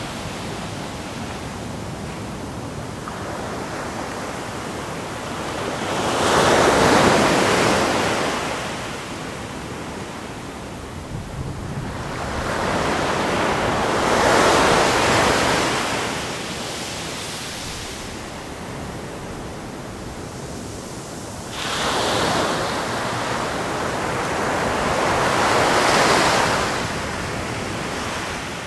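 Ocean surf breaking on a beach: four waves each swell to a loud rush and wash out again, over a steady background hiss of the sea.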